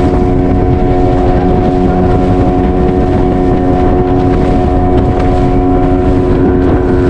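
Outboard motor of a small fishing boat running at a steady cruising speed, with wind buffeting the microphone.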